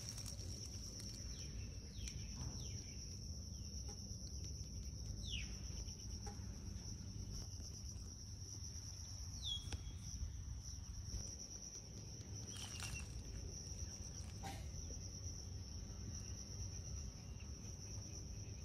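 Steady high-pitched drone of insects over a low background rumble, with a few short, faint falling peeps from a baby chick.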